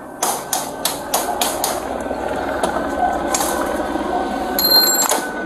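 Repeated sharp bangs on a metal mesh security screen door, a few a second at uneven spacing. A short electronic beep sounds near the end.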